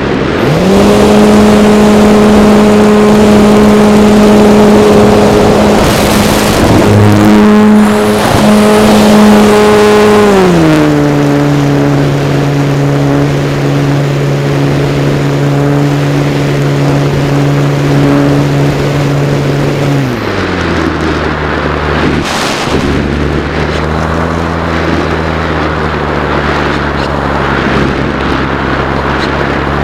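Radio-controlled model airplane's motor and propeller running at a steady high pitch after throttling up right at the start, then dropping to a lower steady pitch about ten seconds in and lower still about twenty seconds in as the throttle is eased back.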